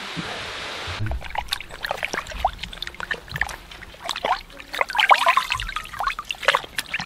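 A steady hiss, then from about a second in water splashing and sloshing in a cooking pot as a skinned skunk carcass is rubbed and washed by hand. It comes as quick, irregular splashes and drips.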